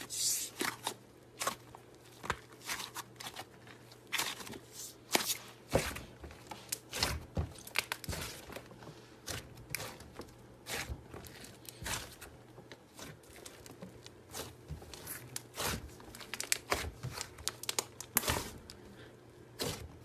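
Slime being squeezed, stretched and poked by hand, giving a string of irregular sharp pops, crackles and crinkly tearing sounds.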